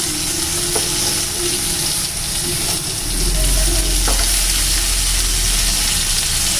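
Rohu fish steaks sizzling as they shallow-fry in oil with onions and curry leaves, while a wooden spatula scrapes and turns the pieces in the pan, with a couple of light taps.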